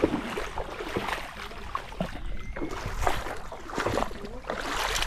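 Shallow river water splashing and sloshing in uneven strokes, as from wading or handling gear in the water.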